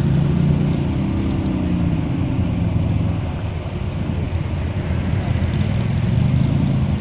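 Quad-bike (ATV) engines running hard as the machines wade through a muddy bog, the engine pitch rising and falling with the throttle. The engines ease off about halfway through and pick up strongly again near the end.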